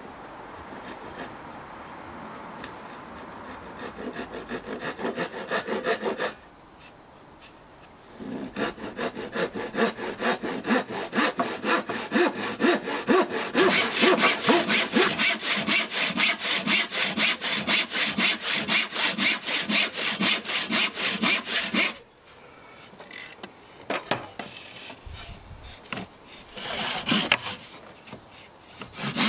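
Hand saw cutting through a pallet-wood slat in fast, even back-and-forth strokes. The sawing builds up, pauses briefly, runs on steadily, then stops about three-quarters of the way in. A few scattered knocks follow, and the sawing starts again at the very end.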